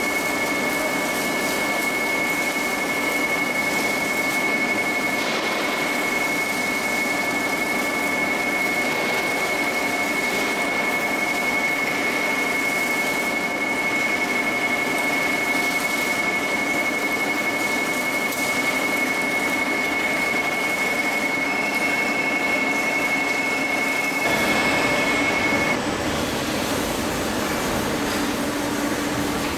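CNC horizontal boring mill drilling with a 65 mm carbide-insert drill: steady cutting noise with a high, even spindle whine. The whine stops and the noise changes near the end.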